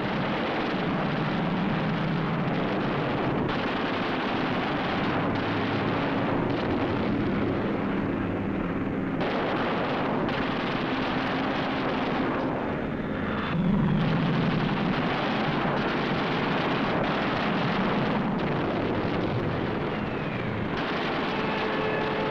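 Propeller fighter aircraft's piston engine droning steadily, with a brief louder swell about two-thirds of the way through.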